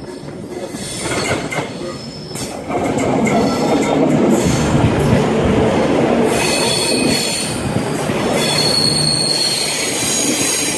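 V/Line VLocity diesel railcar set running in alongside the platform, its rumble growing louder about three seconds in as the carriages pass close by. From about halfway on, a high squeal rises over the rumble as the train slows for its stop.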